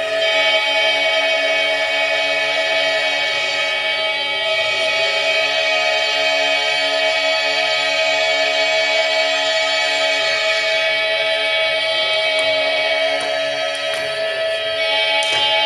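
An a cappella chorus holding a dense chord of long sustained notes, with a few voices gliding in pitch now and then.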